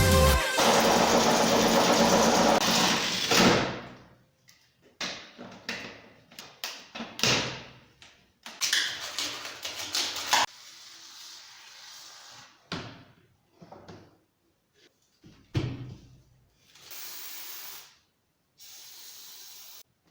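Loud, steady noise for the first few seconds, then scattered knocks, clicks and short hissing bursts of tool and handling work.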